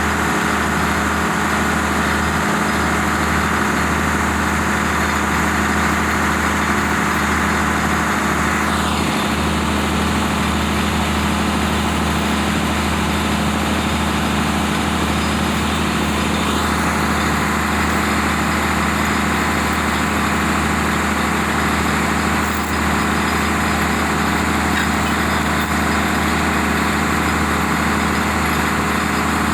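Cummins diesel engine of a Badger 670 mobile excavator running steadily at idle.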